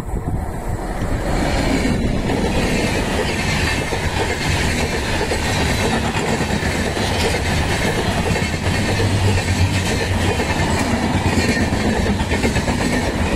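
WAP7 electric locomotive and its passenger coaches passing close by. The rumble swells about a second in as the locomotive arrives, then holds as a steady rush of coach wheels clattering on the rails.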